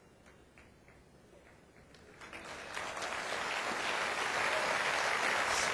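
Audience applauding: a few scattered claps at first, then the whole congregation joins in about two seconds in and claps steadily.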